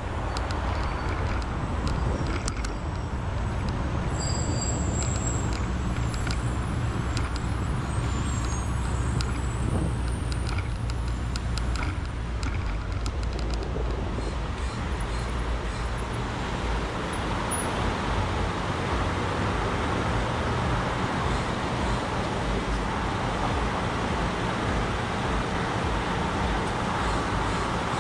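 City road traffic heard from a bicycle: a steady wash of passing cars and engine noise over a constant low rumble.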